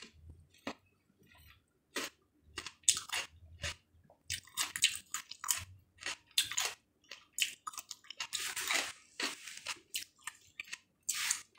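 A person chewing firm, juicy melon chunks, with irregular crunching bites.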